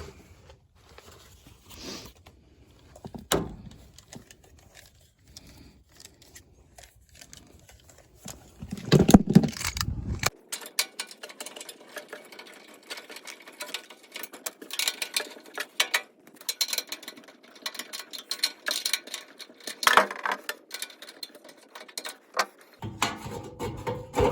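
Small metallic clicks and rattles of parts and tools being handled, with a burst of rustling about nine seconds in and a dense run of light clicks through the second half.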